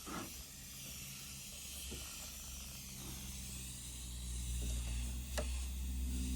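Compressed air hissing steadily out of a leak in pressurized PEX water line during an air pressure test; the leak is a small hole in the PEX. A low steady hum sits underneath and grows louder toward the end.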